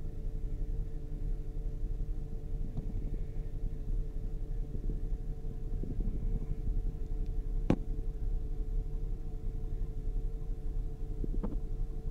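2008 Saturn Outlook's 3.6 L V6 running steadily with a low rumble and a steady hum, no longer misfiring. A few sharp clicks, the loudest about two-thirds of the way through.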